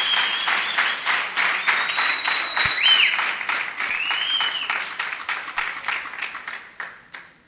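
Audience applauding, dense rapid clapping with a few high drawn-out tones above it, tapering off and fading out near the end.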